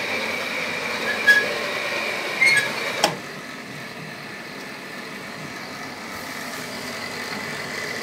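Pellet boiler machinery running: a steady motor whine with a few sharp clicks. It cuts off about three seconds in, leaving a quieter steady hum.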